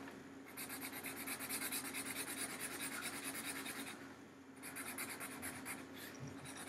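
Marker scratching on paper in quick back-and-forth strokes as a shape is colored in, pausing briefly about four seconds in.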